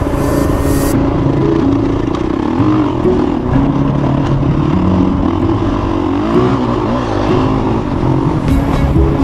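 Off-road motorcycle engine running while riding, the revs rising and falling as the throttle opens and closes.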